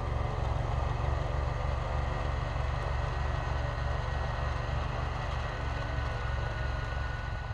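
An engine running steadily with an even, low rhythmic throb, cutting off suddenly at the end.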